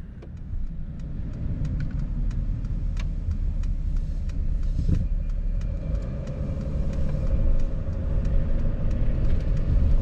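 Van engine and road noise heard from inside the cabin while driving at town speed: a steady low rumble with an engine hum that grows a little stronger past halfway.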